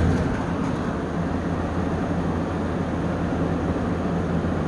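Early-1980s Galaxy 20-inch two-speed box fan running steadily on low speed, a motor hum under the whoosh of the blades. Its motor draws less than its rated 2.2 amps, the sign of a good healthy motor.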